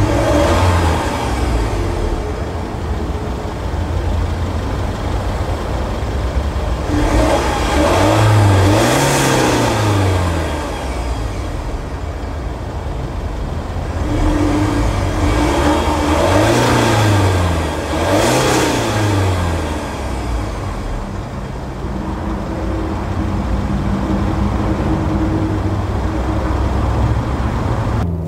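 2017 Range Rover Velar's diesel engine heard at the rear of the car, idling and revved in two quick blips, then two more about eight seconds later.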